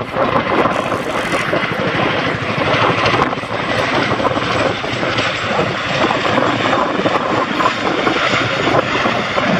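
Boeing CH-47 Chinook tandem-rotor helicopter flying its display, its two rotors beating in a loud, fast, steady chop.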